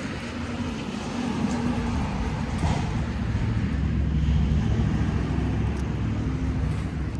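Motor vehicle engine running nearby, a low rumble that builds over the first few seconds and then holds steady.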